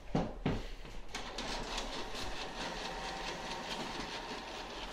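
Printer running as it prints a sheet of transfer paper: a steady mechanical clatter of fast, even ticks that starts about a second in, after a couple of brief knocks.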